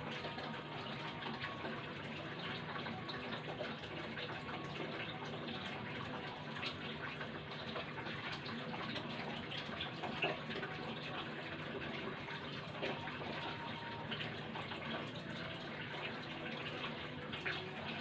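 Steady rushing background noise with a faint low hum, unchanging throughout, with a few light scattered clicks.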